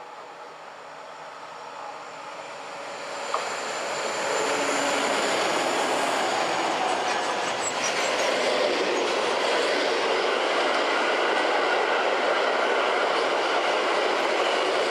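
Freight train approaching and passing close by: the sound swells over the first four seconds or so as the locomotive nears, then settles into the steady rolling noise of covered and car-transporter wagons going past. A faint high whine rides on top during the first several seconds.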